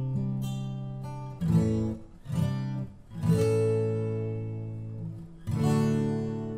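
Intro theme music: a few chords strummed and left to ring out, fading between strums.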